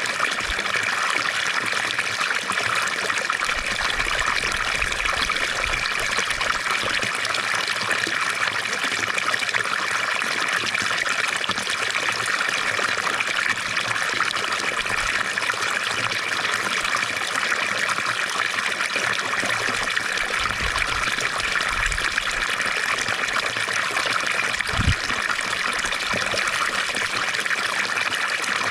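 Fountain water splashing and trickling steadily into its basin, an even rushing wash with no pauses. One brief low thud comes near the end.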